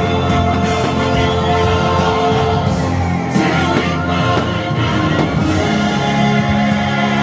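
Orchestral music with voices singing in a choir, with long held chords.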